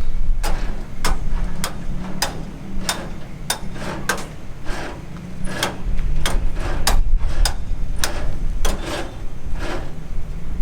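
Hammering, with sharp even strikes a little under two a second, over a steady low hum.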